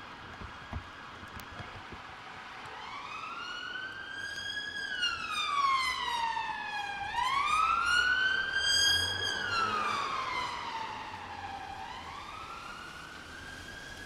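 Emergency-vehicle siren sounding a slow wail. It starts about three seconds in and rises and falls in pitch about every four to five seconds. It grows louder through the middle, then fades.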